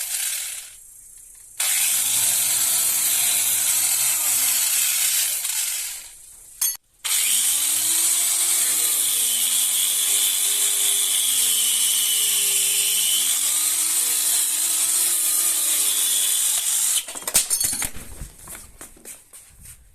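Handheld electric power tool running against rusty metal, its motor pitch sagging and recovering as it is pressed on. It cuts out briefly twice. Near the end it breaks into a clattering, crackling run and winds down.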